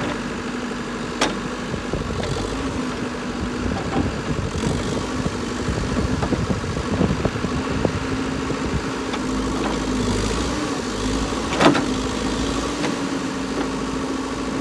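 Backhoe engine running steadily at a constant speed while backfilling dirt around a post, with two sharp knocks, one about a second in and a louder one near the end.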